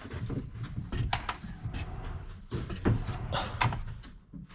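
Heavy solid-core wood pocket door rolling on its overhead track, with scattered knocks and clicks from the track and anti-slam damper. The door is too heavy for the soft-close device to pull it fully shut.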